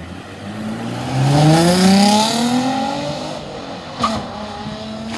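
Nissan 350Z's 3.5-litre V6 revving up as the car accelerates away, its pitch climbing steadily for about two seconds and then easing off as it pulls away. A single sharp pop about four seconds in.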